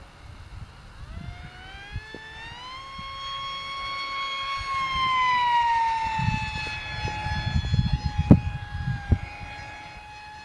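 Radio-controlled Fun Jet model plane's motor and propeller whining overhead, rising in pitch as it comes in, holding, then dropping as it passes and settling to a steadier whine. A low rumble and a sharp knock about eight seconds in come with the second half.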